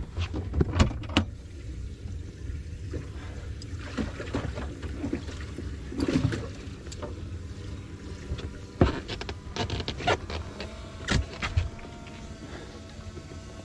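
Scattered knocks and clatter on a fiberglass bass boat, over a steady low rumble; a faint steady hum comes in about ten seconds in.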